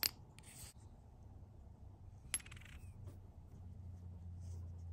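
Small metal watch-movement parts being handled with tweezers and set down on the bench: a sharp click at the start and a second metallic click with a brief rattling ring about two seconds in.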